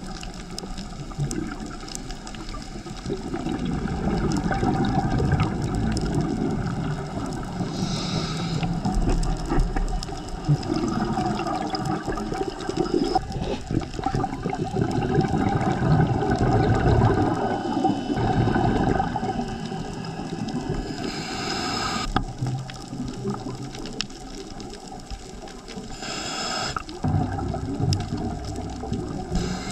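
Scuba divers' exhaled bubbles gurgling and rumbling underwater, with a short hissing gush of bubbles a few times.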